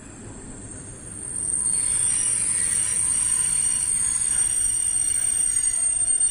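Passenger train's wheels squealing against the rails, a shrill high-pitched screech with several tones that sets in about a second and a half in and holds steady over the train's low running rumble.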